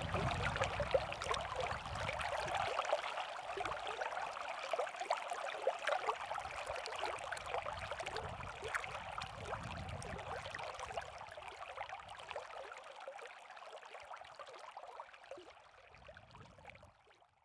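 A steady noise like running water, thick with small crackles, fading out over the last few seconds.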